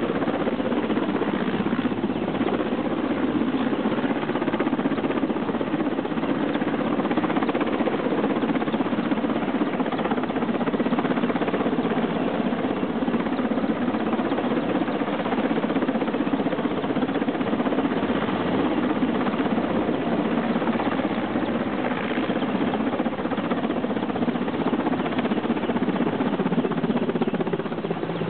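Mil Mi-8-family twin-turbine helicopter hovering close overhead: a loud, steady, rapid chop of the main rotor blades over the whine of the turbines.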